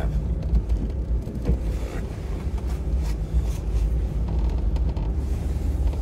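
Steady low rumble of engine and tyres heard inside a car's cabin as it drives slowly.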